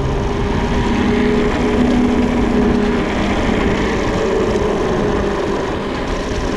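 Steady rush of wind on the microphone and the hum of mountain-bike tyres rolling fast down an asphalt road.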